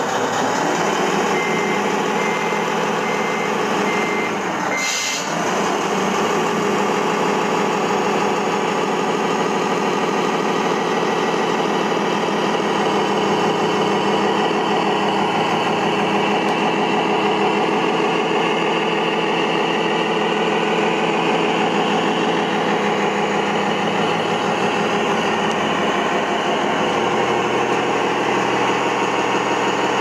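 Simulated truck diesel engine sound from the RC MAN truck's sound module, running steadily at idle. A reversing beeper sounds for a few seconds near the start, about two beeps a second, followed by a brief hiss.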